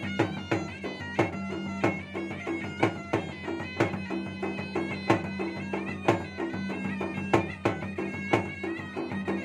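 Makassarese gendang ensemble: two double-headed barrel drums beaten with a stick and the hand in a fast, dense rhythm of several strokes a second, under a nasal double-reed pipe (puik-puik) playing a continuous wavering melody over a steady low hum.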